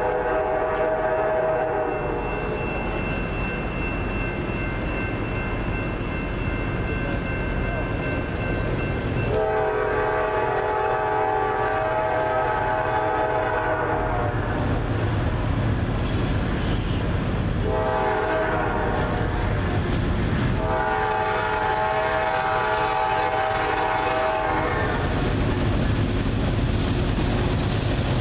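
Norfolk Southern diesel freight locomotive's air horn sounding a chord in the grade-crossing pattern: a long blast ending about two seconds in, another long blast, a short one and a final long one. Under it is the low rumble of the approaching train, growing louder near the end.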